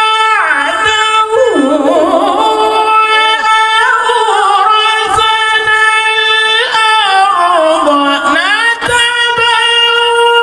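Male Qur'an reciter chanting in the melodic, drawn-out style of tilawah: long held high notes broken by ornamented runs that slide down and climb back up, twice in this stretch, with no pause for breath.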